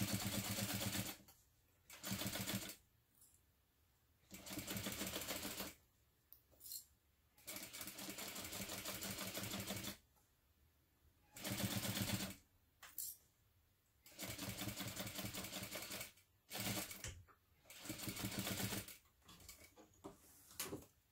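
Sewing machine stitching a seam through layered cotton fabric, running in about nine stop-start bursts of fast, even stitching, the longest about two and a half seconds.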